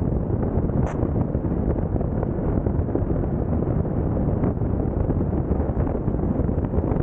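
Steady, loud wind rushing over the microphone of a bicycle-mounted camera as the rider pedals along at speed. A brief high chirp comes about a second in.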